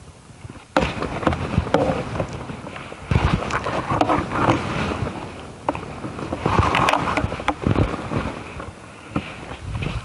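Irregular knocks, clicks, scrapes and rattles of a broken electric garden shredder's hopper cover being worked loose by hand; the shredder's motor is not running.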